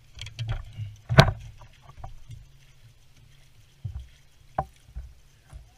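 Knocks, thumps and clatter of people moving and handling gear inside a fishing boat. The loudest bang comes about a second in, with a few smaller bumps near the end.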